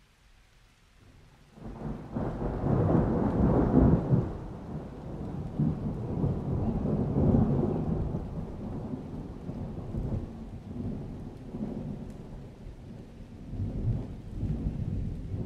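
A low rumble that comes in about a second and a half in, loudest over the next couple of seconds, then rising and falling, with another swell near the end.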